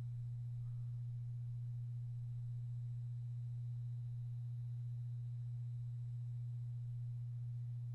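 A steady low hum: one unchanging low tone, with nothing else heard over it.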